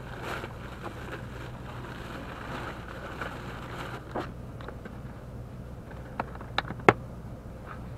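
Handling a plastic cooler box: a few sharp plastic clicks and knocks in the second half, the loudest about seven seconds in as the lid is shut, over a steady low hum.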